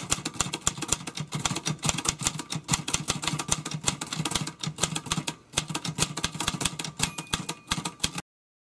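Typing sound effect: rapid, irregular key clicks, a few per second, that cut off abruptly near the end.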